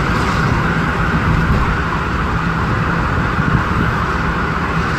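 Steady road and engine noise from inside a moving vehicle's cabin while driving.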